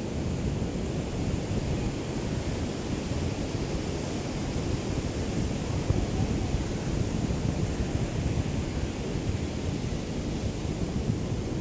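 Small waves of a calm sea lapping on the shore, a steady wash with no distinct breaks, mixed with a low rumble of light wind on the microphone.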